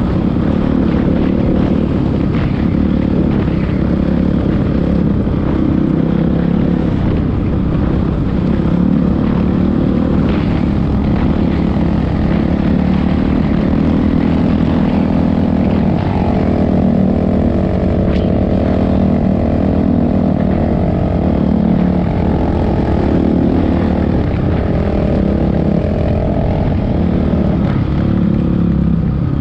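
Dirt bike engine running steadily under way, heard from on board the bike, its note rising and falling slightly with the throttle past the middle.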